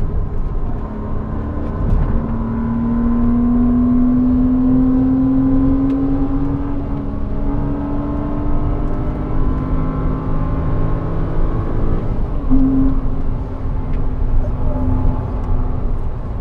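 Porsche Cayman 987's mid-mounted flat-six engine, heard from inside the cabin at speed on track. It pulls steadily, its pitch rising slowly for about ten seconds, then dips briefly about twelve seconds in and picks up again, over a low rumble of tyre and road noise.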